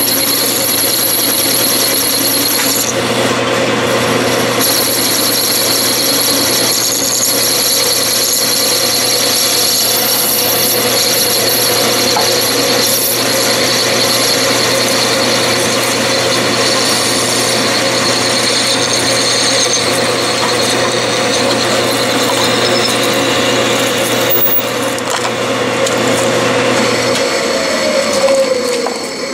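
Metal lathe running while a 3/32-inch-wide cutoff tool parts off a small turned part, a steady machining noise with high ringing tones. Near the end the hum stops and the pitch falls as the lathe winds down.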